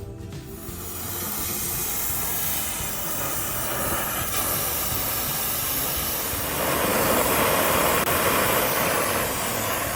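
Loud steady hiss of pressurised gas escaping from an air-conditioning system, growing louder about six and a half seconds in.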